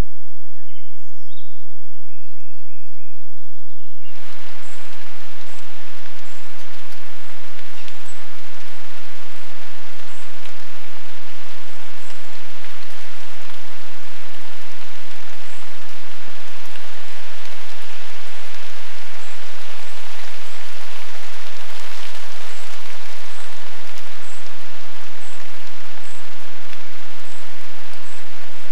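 Steady rain falling, an even hiss that starts abruptly about four seconds in, with short high chirps repeating every second or so over it. Before that, a few bird chirps over a quiet background.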